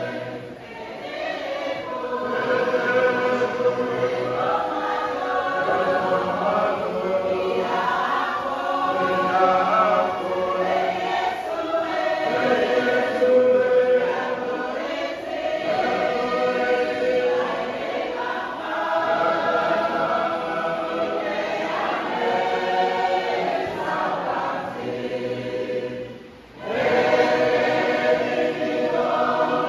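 Church congregation singing a hymn in Cook Islands Māori unaccompanied, many voices together in harmony. The singing drops out briefly near the end, then picks up again.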